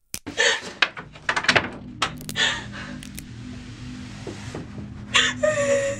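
A frightened woman gasping and sobbing, with short hurried breaths and a drawn-out whimper near the end. Under it, a low steady drone of horror film score comes in.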